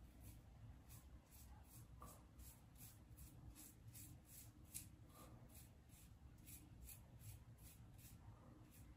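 Razorock Eco single-edge razor scraping through lathered beard stubble in quick, short strokes, about three faint scratchy strokes a second.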